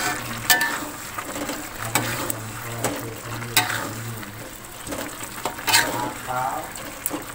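Metal spoon stirring chicken feet and chicken heads frying in spice paste in a metal wok: a soft sizzle, with the spoon scraping and clinking against the pan about seven times.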